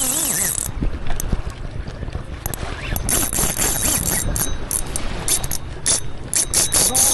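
Shimano Saragosa spinning reel's drag clicking in stuttering bursts as a hooked yellowfin tuna pulls line off it. Steady low rumble underneath.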